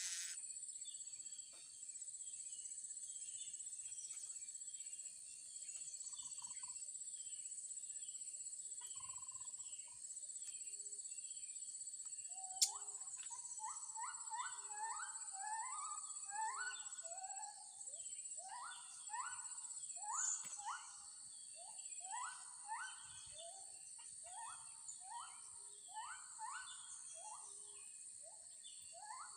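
A steady high insect drone, with faint chirping through it. From about halfway in, a bird repeats short rising calls, roughly two a second, and there is one sharp click just as the calls begin.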